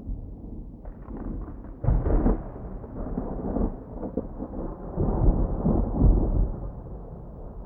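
Thunder rolling over light rain: a crackle about a second in, then deep rumbling that swells twice, around two seconds in and again from about five to six and a half seconds, before dying away.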